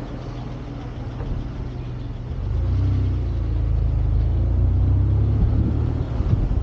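A vehicle on the move: a steady low rumble of engine and road noise with wind on the microphone. It gets louder a little over two seconds in.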